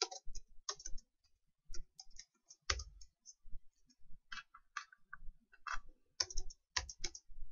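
Typing on a computer keyboard: scattered, irregular keystrokes with short pauses between them.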